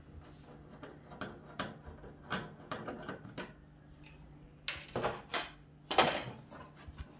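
Screwdriver clicking and scraping on the screws in the plastic back of a flat-screen TV, then several louder knocks about five and six seconds in as the wooden packing batten is lifted off and handled.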